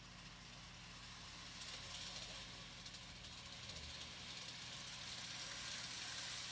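Faint running noise of an N-gauge model train, a Kato C62 steam locomotive with coaches: a steady low hum under a wheel-on-rail hiss, slowly growing louder as the train approaches along the curve.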